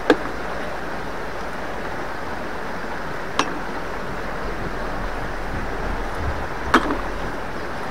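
Steady rush of fast-flowing river water, broken three times, about three seconds apart, by a short sharp knock.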